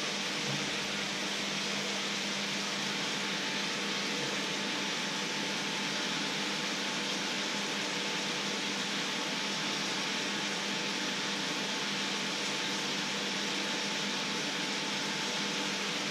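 Water boiling in a shallow pan on an electric hob: a steady hiss, with a faint steady hum underneath.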